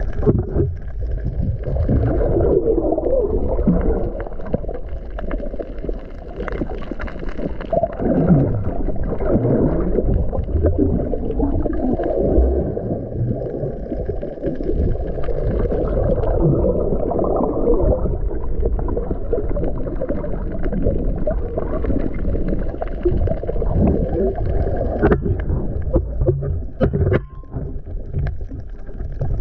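Muffled underwater noise from a camera in its waterproof housing: water sloshing and gurgling around it as the diver moves. A few sharp clicks come near the end.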